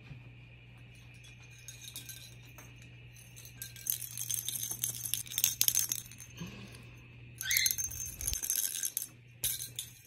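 A small plastic jingle-ball toy rattling and jingling as a sun conure bites and pushes it, in bouts starting about four seconds in and again from about seven and a half seconds to the end.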